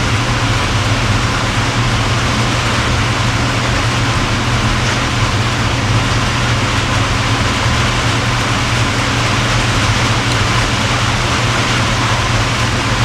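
Steady mechanical drone with a low hum and an even hiss, unchanging throughout, like a fan or motor running.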